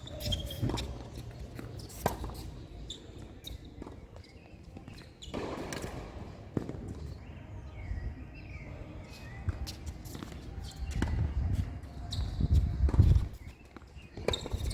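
Tennis ball bouncing and players' footsteps on a tennis court: scattered sharp knocks at irregular spacing. A low rumble swells about eleven seconds in and is the loudest part, then dies away near the end.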